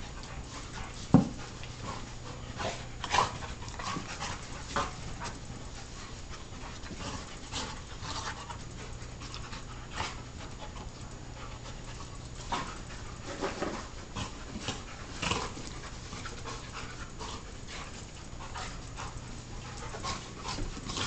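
Labrador retrievers play-wrestling, panting, with many short, sharp scuffling and mouthing noises. The loudest is a single sharp sound about a second in.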